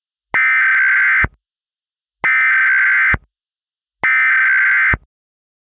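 Emergency Alert System SAME header: three identical bursts of warbling digital data tones, about a second each and about a second apart, carrying the encoded alert that opens the broadcast.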